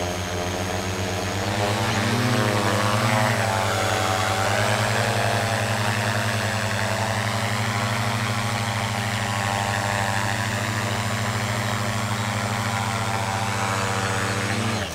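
Twin-rotor drone's two motors and propellers buzzing steadily in flight, the pitch wavering briefly about two seconds in. It stops abruptly near the end.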